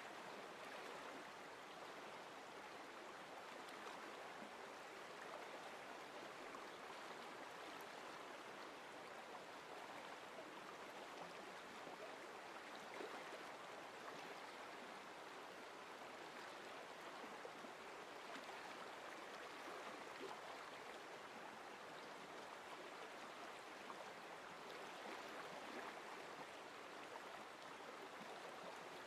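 Faint, steady babbling of a flowing stream, a nature-sound track.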